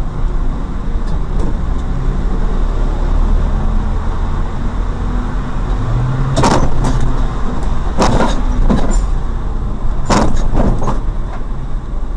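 Steady motor vehicle engine and road noise, broken by three short, sharp noises about six, eight and ten seconds in.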